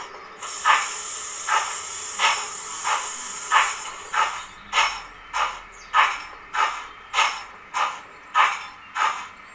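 Digital steam sound from the Zimo sound decoder in a model Johnson 1P locomotive: steady, evenly spaced exhaust chuffs, about one and a half a second, with a continuous steam hiss over them for the first four seconds or so that then cuts off.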